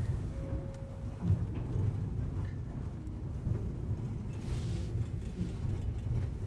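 Low rumble of a passenger rail car rolling slowly over the track during switching, heard from inside the car. There is a single knock about a second in.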